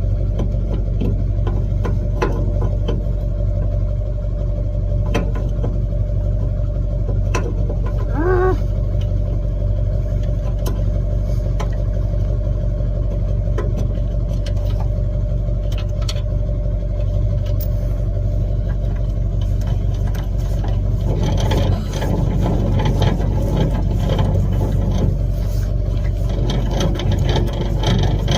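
Pickup truck engine idling steadily, turning louder and rougher about 21 seconds in.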